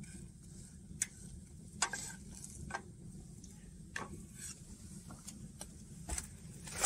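Wooden spatula scraping and knocking against a frying pan as a pancake is turned: several sharp taps over a steady low hum.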